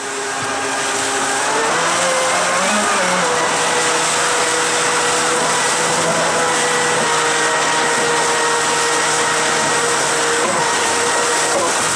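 Electric jet-drive unit for a jet surfboard running hard in a water test tub, drawing about 35 to 40 amps: a steady electric motor whine over loud churning, frothing water. The sound fades in at the start, and the whine wavers in pitch about two seconds in before holding steady.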